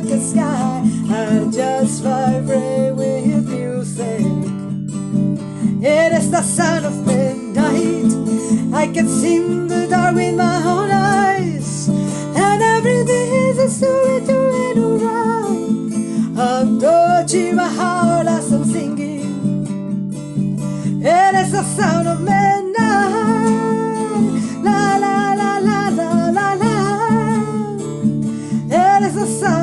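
Strummed acoustic guitar accompanying a woman's singing voice, which holds long notes that glide and bend in pitch.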